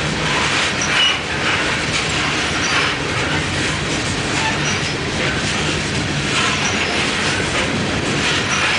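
Loaded coal hopper cars rolling past, their steel wheels rumbling steadily and clattering over the rail joints, with short high squeals now and then.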